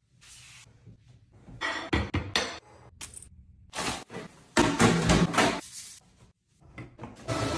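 Containers and groceries being handled and set down one after another: a series of knocks and light clinks, with short stretches of rustling and scraping, the longest a little after the middle.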